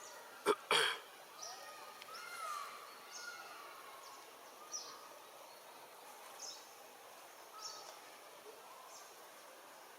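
Outdoor ambience with birds chirping: short high chirps every second or so and a few gliding calls. Two sharp knocks about half a second in are the loudest sounds.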